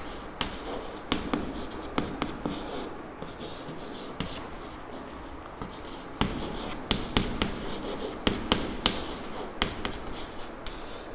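Chalk writing on a chalkboard: a run of sharp taps and scratches as symbols are written, busiest in the second half.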